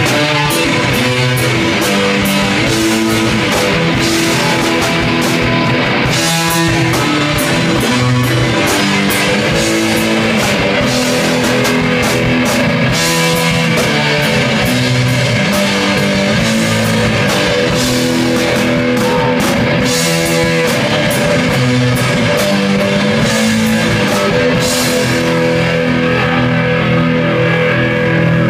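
A rock band playing loud and live: electric guitars over a drum kit, with cymbal hits throughout. The cymbals drop out near the end while the guitars carry on.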